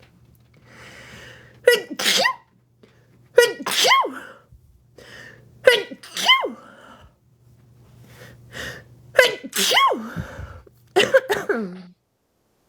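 A woman sneezing several times in a row. Each sneeze is a sharp burst followed by a voiced cry that rises and falls, with short in-breaths before them.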